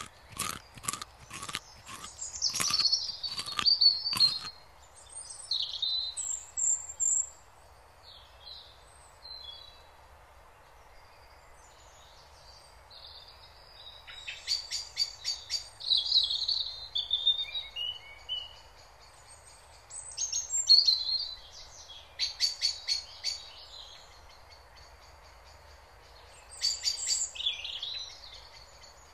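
Songbirds chirping and trilling in short phrases, with quiet gaps between them. For the first four seconds, a rabbit chewing grass close to the microphone makes a run of crisp clicks, about two a second.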